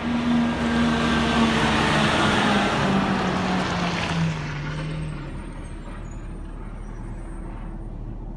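Garbage truck's engine running loud with a rushing hiss, its pitch falling slowly, then dropping to quieter steady running about five seconds in.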